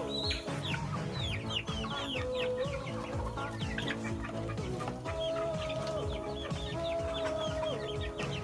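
Chickens clucking, with many short quick chirps, over background music carrying a slow held melody.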